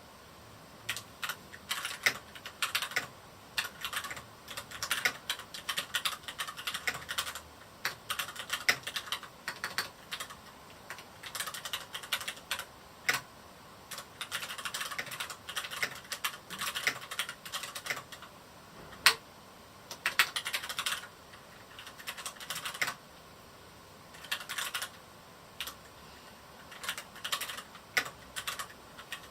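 Typing on a Varmilo Miya68 mechanical keyboard with Cherry MX Red switches, in quick irregular runs of key clacks broken by short pauses, with one sharper single keystroke about two-thirds of the way through.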